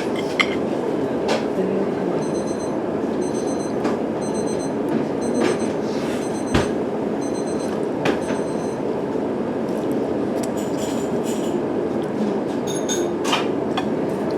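Steady rumbling ambience of the kind heard around a train, with scattered clicks and knocks. A high electronic beeping repeats about twice a second from about two to seven seconds in.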